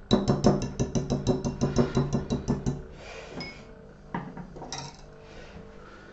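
Wire whisk beating a thick butter-and-chocolate-chip filling in a glass bowl, clinking against the glass in a fast even rhythm of about seven strokes a second that stops about three seconds in. A couple of single knocks follow.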